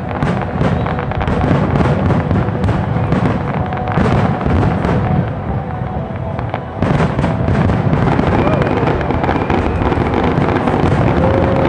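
Aerial fireworks shells bursting in a rapid, continuous barrage of booms and crackles, easing briefly a little past halfway before the barrage picks up again.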